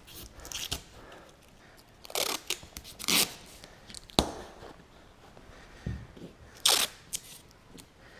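A handful of short crinkling and scraping sounds, about five in all with quiet gaps between, from hands handling the solar panel and its tape as it is fitted in place.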